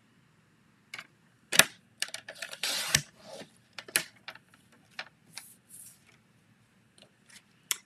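Cardstock being handled and cut on a paper trimmer: a few sharp clicks and taps, and a short swish of the cutter about three seconds in.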